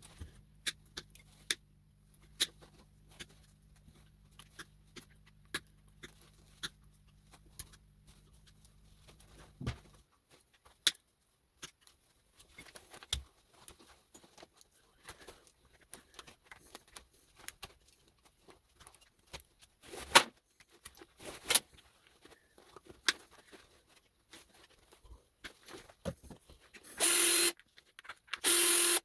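Small metal clicks and clinks as brass connectors and their screws are handled, taken apart and dropped, with one sharper clink about 20 seconds in. Near the end a small electric power tool starts whirring in stop-start bursts.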